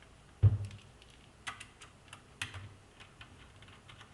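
Small clicks and taps of a precision screwdriver and the plastic case of a mini desktop computer being handled while its screws are taken out, with one heavier thump about half a second in.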